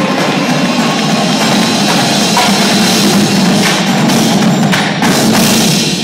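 High school indoor drumline playing: marching drums with a front ensemble of marimbas and other mallet percussion.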